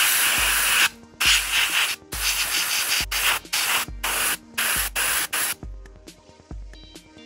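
Gravity-feed airbrush spraying paint: a loud steady hiss broken by short gaps as the trigger is let off and pressed again, stopping a little over three-quarters of the way through. Soft background music with a regular low beat underneath.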